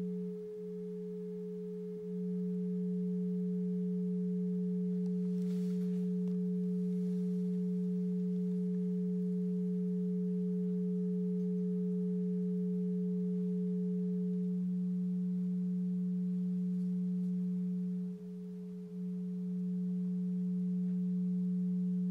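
Two steady electronic sine tones from function generators driving the TV's deflection coils: a low tone around 180 hertz and a fainter, higher one above it. The low tone briefly drops in level twice, once near the start and once near the end.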